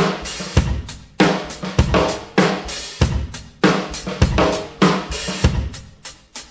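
Background music: a drum-kit beat with bass drum, snare and cymbals, strong hits evenly spaced a little under twice a second.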